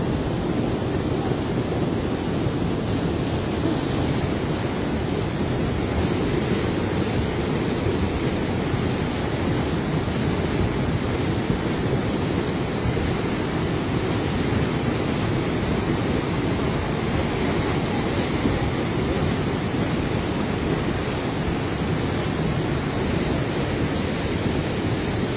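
A huaico, a fast mudflow of muddy water and debris, rushing steadily as an even, low-pitched wash of noise that never lets up.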